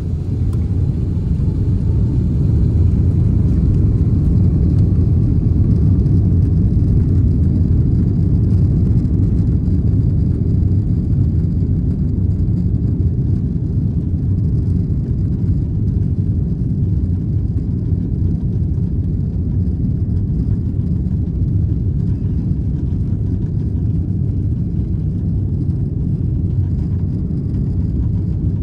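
Airbus A330-300's jet engines spooling up to takeoff thrust, with a rising whine over the first few seconds, then a loud steady rumble heard from inside the cabin during the takeoff roll.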